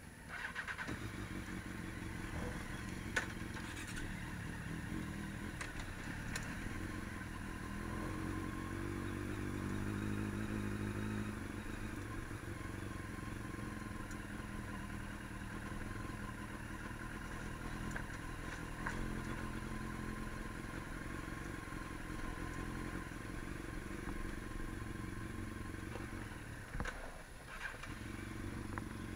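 Vehicle engine running while riding, its pitch rising and falling with speed, with a brief dip near the end.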